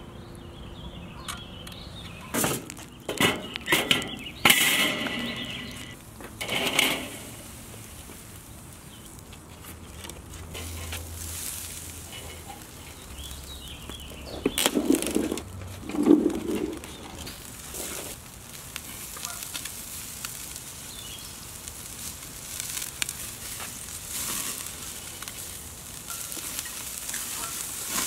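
Clattering of a hinged stainless wire grill basket closing over raw chicken wings and being set on a charcoal kettle grill: a few bursts of sharp metal clanks and rattles. A steady sizzle of the wings over the hot coals follows.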